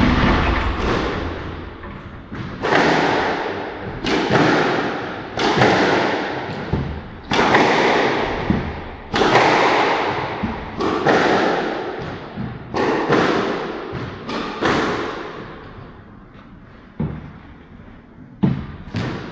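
Squash ball being struck back and forth in a rally-style knock-up: a sharp racket-and-wall impact about every second or two, each one ringing out loudly in the enclosed court.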